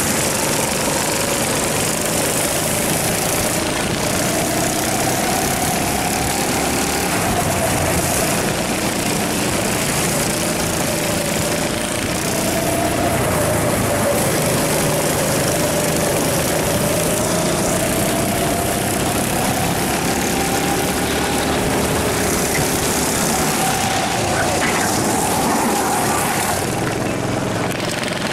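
Rental go-kart engine under racing load, heard onboard from the driver's seat: its pitch rises and falls slowly as the kart accelerates along the straights and eases into the corners, over a dense rushing noise, with other karts running close by.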